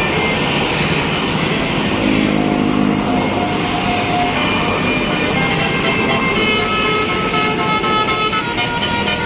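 Bus passing with its engine running while its multi-tone basuri 'telolet' horn sounds held notes. The notes begin about two seconds in, move to higher pitches later, and become busier and choppier near the end.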